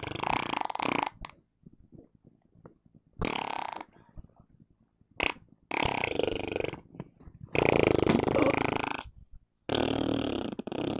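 A person making a string of about six fart noises, each up to a second and a half long with short gaps between, the loudest about eight seconds in.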